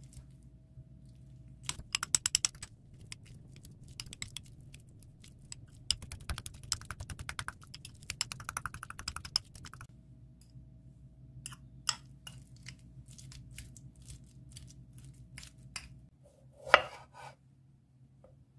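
Metal fork mashing ripe avocado in a glass bowl: quick runs of clicking taps as the tines strike the glass, thinning out after about ten seconds. One loud knock near the end.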